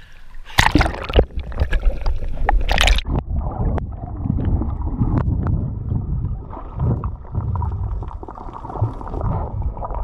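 Water splashing loudly around an action camera for the first few seconds, then the muffled underwater sound once it is submerged: a low rumble with bubbling and small clicks, the high sounds cut off.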